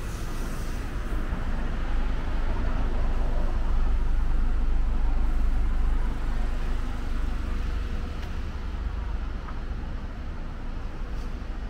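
Taxi driving slowly past close by: engine and tyre noise that swell over the first few seconds and then fade.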